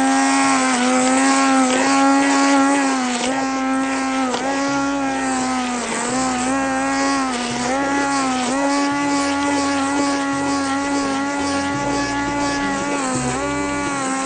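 Electric immersion hand blender running in a pot of chunky tomato cream soup, puréeing it. Its motor gives a steady hum whose pitch dips briefly every few seconds.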